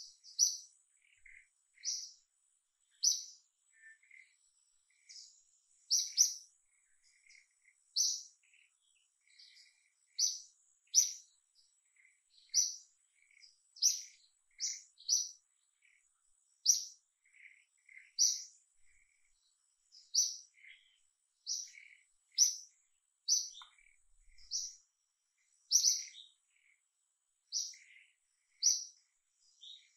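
A bird calling over and over: short, high chirps about once a second, sometimes in quick pairs, with a faint steady high thin tone beneath.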